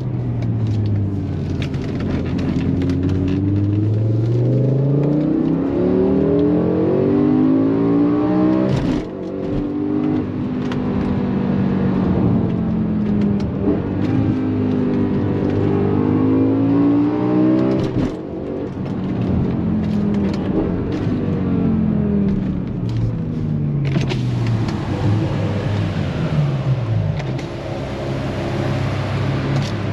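BMW M5 E61's S85 5.0-litre V10 running under load as the car is driven, the engine note repeatedly climbing and dropping through the revs. There are short breaks in the sound about nine and eighteen seconds in, and the note settles into a steady pitch near the end.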